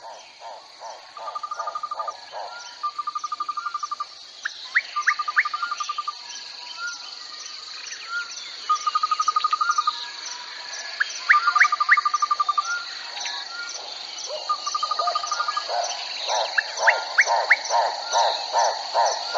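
Crickets chirping in a steady high-pitched chorus, with other animal calls over it: repeated short trills, sets of three quick rising whistles, and a rapid pulsing call that grows louder near the end.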